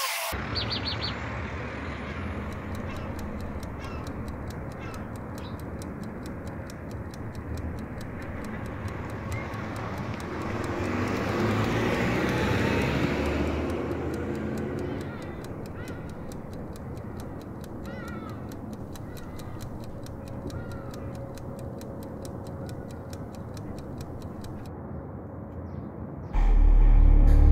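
Outdoor ambience: a steady hum of distant road traffic that swells for a few seconds around the middle, with a few faint bird chirps. Loud music with a heavy bass comes in near the end.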